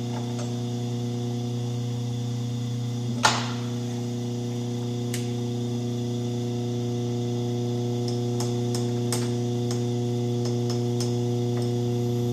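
Atlas shaper's electric motor humming steadily, with one sharp metallic clack about three seconds in and a few light clicks later, as the operator shifts the stroke speed down a notch.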